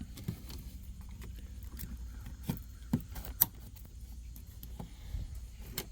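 A few scattered light clicks and taps of plastic as the headlight switch is worked out of the dash, its retaining clips being released, over a faint steady low hum.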